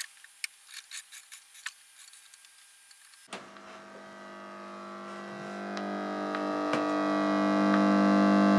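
A few sharp clicks as a mains plug is pushed into a socket. About three seconds in, the Hagström 26 valve amplifier's speaker starts a steady mains hum, 50 Hz and its overtones, which swells louder and louder. This is the unit's excessive hum, which the repairer is pretty sure comes from its original 1960s electrolytic capacitors deteriorating.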